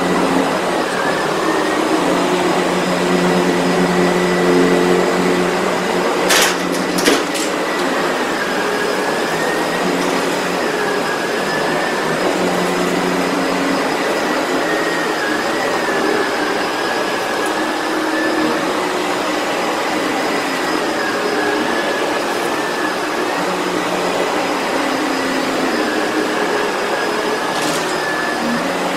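Sebo Felix vacuum cleaner running steadily, its motor whine wavering slightly in pitch. Two sharp knocks come about six and seven seconds in, and another near the end.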